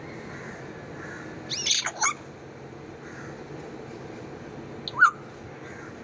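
African grey parrot squawking: a quick run of harsh calls with sliding pitch about a second and a half in, then one short, sharp rising call near the end, the loudest.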